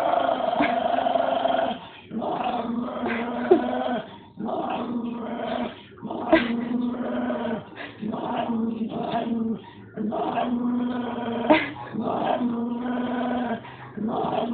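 Dog growling in a long series of drawn-out growls, each a second or two long with a short breath between, directed at a dog statue it takes for another dog.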